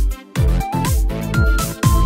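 Background electronic music with a steady kick drum at about two beats a second under a simple melody. It dips out briefly just after the start.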